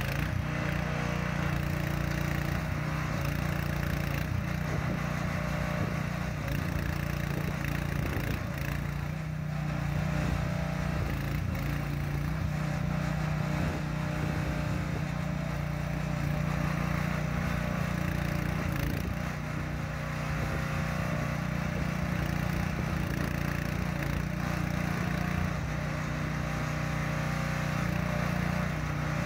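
The 420cc gasoline engine of an Agrotk YM12 mini excavator running steadily as the boom and bucket are worked, its level dipping slightly a couple of times.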